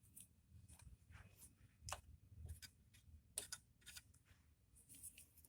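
Faint, scattered light clicks and taps of plastic dolls being moved about on a toy house, about a dozen at uneven intervals, with near silence in between.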